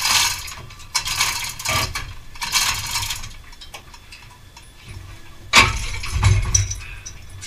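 Ratchet spanner worked on bolts in a car's engine bay, in rasping bursts about a second apart, then a sharp metal knock and a heavy thud about five and a half seconds in.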